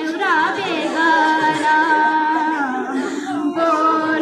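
A woman's voice wailing in a sung lament of mourning. It slides in pitch at first, then holds long, drawn-out notes with no instruments.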